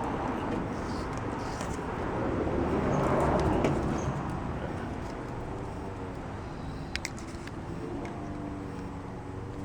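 Outdoor background noise with a vehicle passing, swelling to its loudest about three seconds in and fading away, and a few sharp clicks about seven seconds in.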